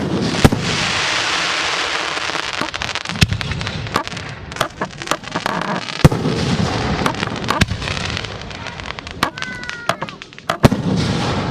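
Aerial fireworks shells bursting in quick succession: many sharp reports, irregularly spaced, over a continuous hiss.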